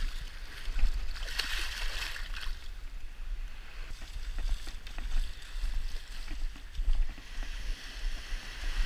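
Small surf waves washing and breaking along a sandy shoreline, with wind rumbling on the microphone. A splash near the start as a released fish goes back into the water.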